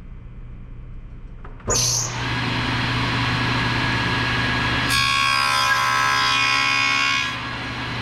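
Table saw motor switched on, spinning up with a sudden start and then running steadily. From about five seconds in, for a little over two seconds, the blade cuts through the wooden workpiece, making a louder, denser whine. It then runs free again.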